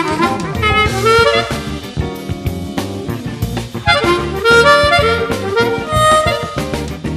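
Eb diatonic harmonica played in second position in B-flat, a bluesy melody of short notes and brief held tones, over a backing track with bass and drums.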